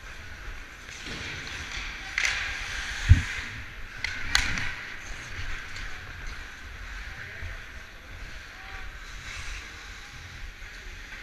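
Ice hockey skate blades scraping and carving the ice in swelling strokes, with wind rumble on a GoPro worn by the skater. A low thump about 3 s in and a sharp clack a little over a second later.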